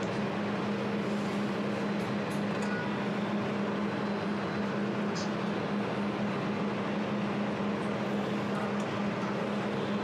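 A 200 W desktop jewelry laser welder powered up and idling: a steady machine hum with an even hiss.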